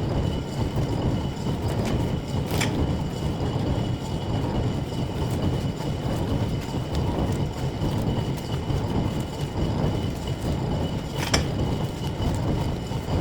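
Metal-turning lathe running: a steady mechanical rumble with a faint high whine, and two sharp clicks, one about two and a half seconds in and one near the end.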